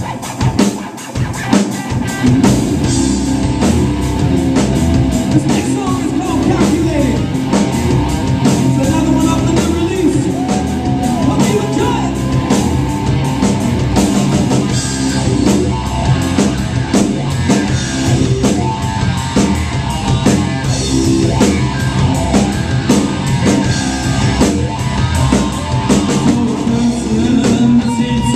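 Live hard rock band playing: distorted electric guitar, electric bass and a drum kit, with a male singer. It opens on drum hits, and the full band comes in about two seconds in.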